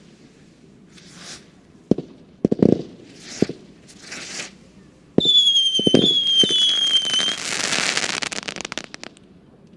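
Nico 'New York' firework battery firing: hissing launches and sharp bangs for the first few seconds. Then, about halfway, loud whistling shots, three whistles each sliding slightly down in pitch, run into a dense crackling that stops shortly before the end.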